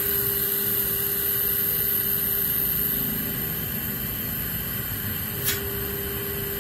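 Panasonic inverter air conditioner outdoor unit running, a steady whirring noise with a steady hum. The hum drops out about three and a half seconds in and comes back about five seconds in. A single sharp click sounds near the end.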